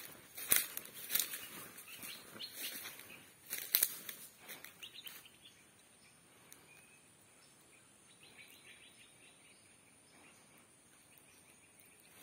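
Footsteps crunching and rustling through dry undergrowth and fallen oil palm fronds, in irregular crackling strokes for about the first five seconds, then only faint rustles.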